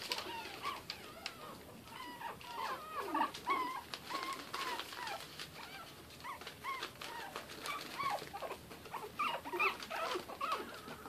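Several Shih Tzu puppies about five weeks old whining and whimpering in short, high, overlapping cries that rise and fall. They have just been put into a new pen away from their mother.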